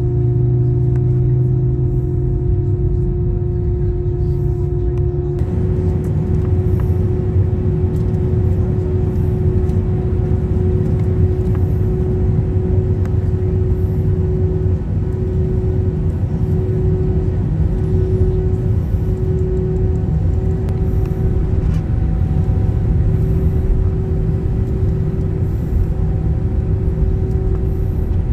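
Airliner cabin noise heard at a window seat over the wing: the aircraft's jet engines and air systems making a steady drone with a humming tone. About five seconds in the sound turns rougher and fuller as the aircraft waits at the runway holding point and then taxis toward the runway.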